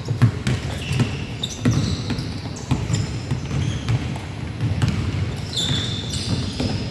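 Basketball being dribbled on a hardwood gym floor: repeated bouncing thumps. A few high squeaks from sneakers on the floor come near the end.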